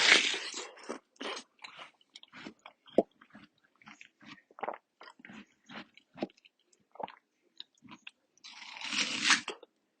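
Close-miked bites into watermelon and chewing: a long crunching bite at the start and another about nine seconds in, with a string of short, sharp chewing smacks between them.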